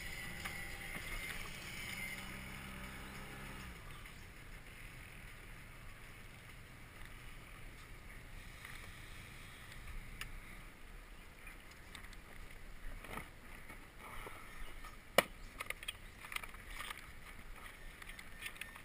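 Water lapping against an aluminium jon boat, with a low hum that stops about four seconds in. Scattered knocks and clicks follow in the second half, one of them sharp and loud.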